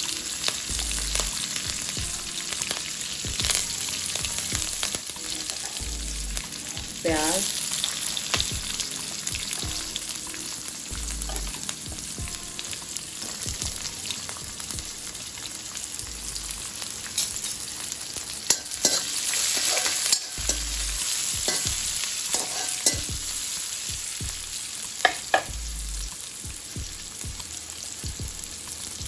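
Cumin, fenugreek, curry leaves and green chilli sizzling in hot oil in an aluminium kadhai, with a steady frying hiss. Sliced onion goes in about seven seconds in and keeps sizzling, with stirring scrapes and clicks against the metal pan, a few of them sharp and loud later on.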